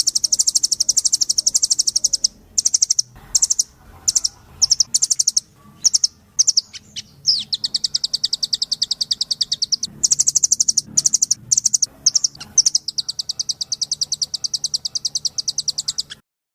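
Velvet-fronted nuthatch singing: fast trills of sharp, high repeated notes in long runs, broken by short pauses and a few separate calls in the middle, then stopping abruptly near the end.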